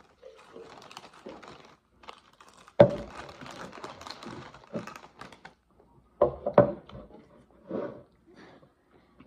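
Crinkling and rustling of handled packaging, broken by knocks on a wooden tabletop: one sharp knock about three seconds in and two quick knocks about six and a half seconds in, as a plastic cup is set down on the table.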